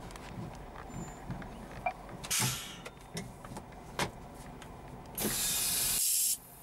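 Scania truck's air brakes hissing twice, a short blast and then a louder one of about a second, with small clicks in the cab. The diesel engine's idle rumble stops near the end as the truck is switched off.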